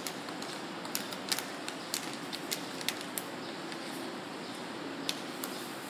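Plastic sugar packet crinkling as it is handled, a scattered series of short sharp crackles over a steady background hiss.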